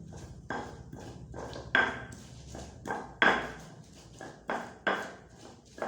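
Kitchen utensils knocking repeatedly: about ten sharp clacks at an uneven pace, each with a short ring.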